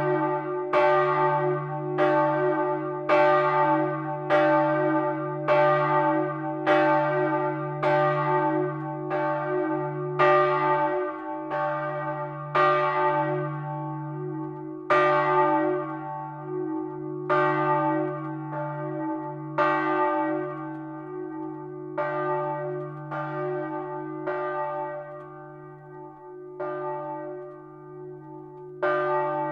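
Bronze church bell swinging in its timber tower frame, its clapper striking about once a second over the bell's steady low hum. In the second half the strikes grow weaker and further apart as the bell rings down, and one stronger strike comes near the end.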